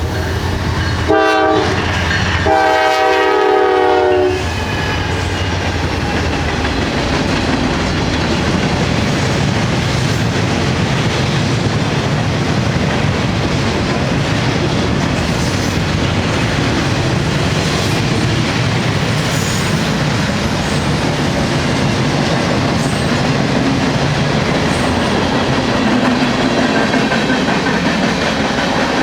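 Air horn on a lead GE Dash 9 diesel locomotive finishing its crossing signal: a short blast about a second in, then a longer one whose pitch drops slightly as it passes. Then the locomotives' diesel engines work upgrade and a long freight train rolls by with steady rumble and clickety-clack of wheels on rail.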